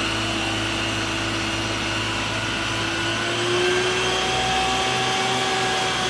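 Steady rushing hiss of a water tanker truck's roof-mounted water cannon spraying a long jet, with a faint steady hum underneath that shifts slightly about three seconds in.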